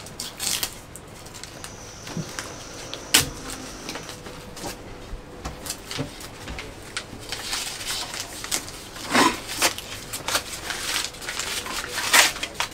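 Masking tape being peeled off stainless boat-seat stanchions, with scattered clicks and knocks of handling. There is a sharp click about three seconds in, and denser crackly peeling in the second half.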